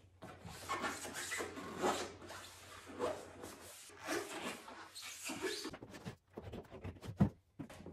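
Hunter rubber boots being pulled off, rubber rubbing and scraping in irregular strokes without squeaking, with one sharp knock about seven seconds in.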